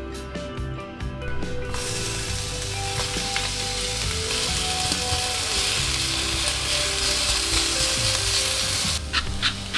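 Sliced onions sizzling steadily as they fry in oil in a pan, starting about two seconds in, with soft background music underneath. Near the end the sizzle stops and a run of evenly spaced taps follows, about three a second.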